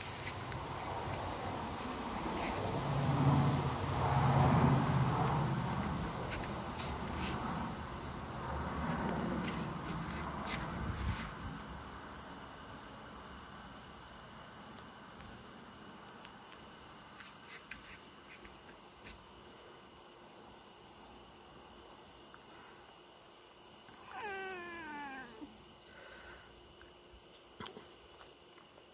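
Crickets chirring steadily at a high pitch throughout. A Maine Coon cat makes low-pitched vocal sounds for the first ten seconds or so, and gives one meow that falls in pitch about 24 seconds in.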